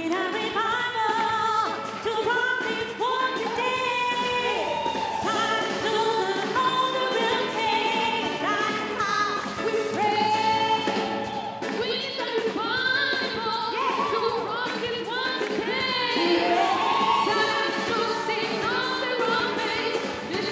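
Gospel choir singing in full voice with a live band of drums, keyboard and guitar, the voices coming in together right at the start.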